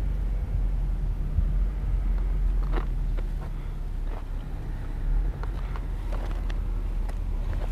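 Wind rumbling on the microphone, with a few light, irregular crunches of footsteps on gravel.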